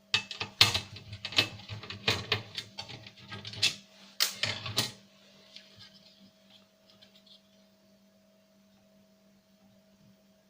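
Irregular sharp clicks and knocks of a DVD player's plastic and metal parts and circuit board being handled, for about the first five seconds; after that only a faint steady hum.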